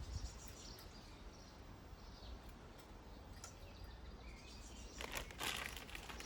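Faint outdoor background with a low wind rumble and a few small birds chirping. About five seconds in there is a short rustling crunch from a bag of bird seed being handled.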